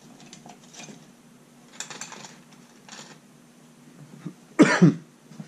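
A man coughs once, short and loud, about four and a half seconds in, after faint clicks and rustles of small objects being handled on a workbench.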